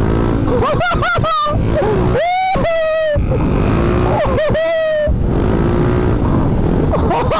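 Tuned Yamaha X-Max scooter engine, bored out to 450 cc, revving hard in three surges under full throttle, each rising in pitch and then holding, over a steady rumble of wind and road noise.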